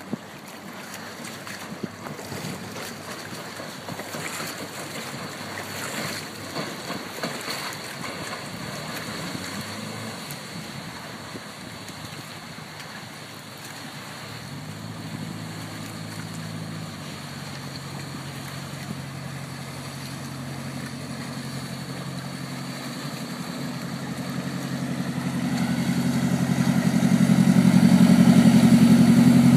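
A 300 hp FNM marine diesel in an aluminium jet boat drives a Hamilton 212 water jet as the boat approaches and passes close. Early on there is mostly wind and water hiss with the engine faint; from about halfway a steady engine note comes through, shifts about three seconds later, and grows steadily louder to its loudest near the end as the boat goes by.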